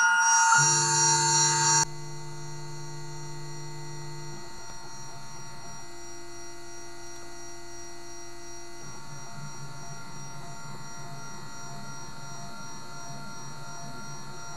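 Strizh-4 desktop CNC jewellery mill at work: its stepper motors sound steady pitched tones, loudest for the first two seconds or so, as the spindle positions itself. After that the spindle runs with a steady high whine while the cutter works into the plate, and low motor tones change pitch every few seconds as the feed moves change.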